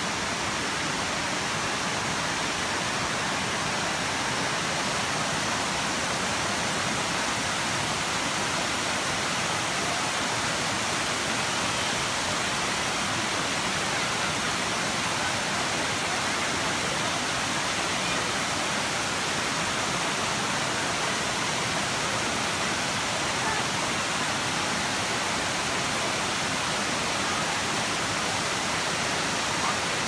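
Water rushing over a waterfall's broad, shallow rock cascades: a steady, even rush.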